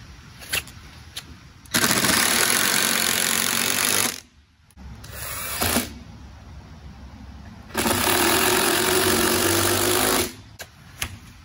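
Cordless drill driving screws to fasten wooden runners onto the frame of a rabbit tractor: two long runs of a couple of seconds each, with a short burst between them.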